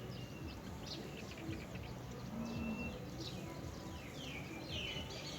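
Birds chirping: short high notes and quick downward-sweeping calls, coming thicker from about halfway through, over a steady background hiss.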